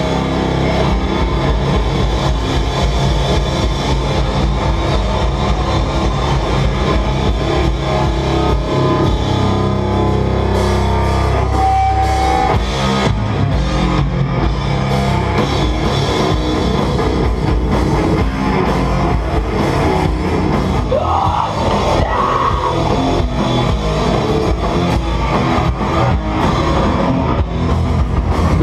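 A sludge metal band playing live through a club PA: heavily distorted guitar and bass over a drum kit, loud and dense, with a long held low chord about ten seconds in.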